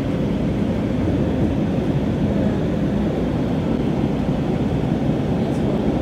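Light-rail train running at speed, heard from inside the car: a steady low rumble with no breaks.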